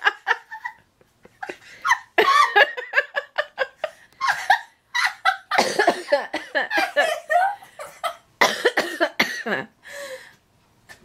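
A woman laughing helplessly in repeated bursts with short pauses between them, with coughs among the laughs.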